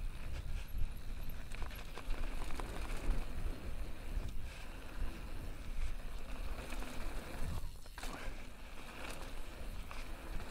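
Mountain bike rolling fast down a dry dirt trail: a steady hiss of tyres on packed dirt and loose stones, with scattered clicks and rattles from the bike, and wind buffeting the helmet-mounted microphone as a low rumble.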